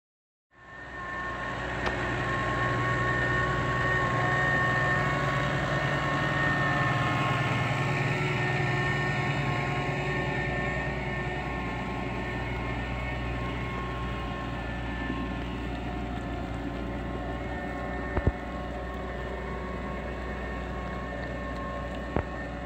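New Holland T7.225 tractor's six-cylinder diesel engine running steadily under load while pulling a reversible mounted plough through the soil. A steady high whine sits over the engine, and there are a couple of short sharp knocks near the end.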